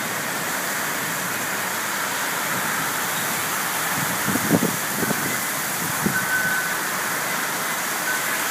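Heavy rain pouring down in a steady downpour, with a few short louder thumps about halfway through.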